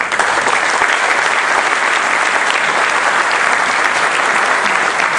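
An audience in a hall applauding, a dense, steady clapping that holds at one level throughout.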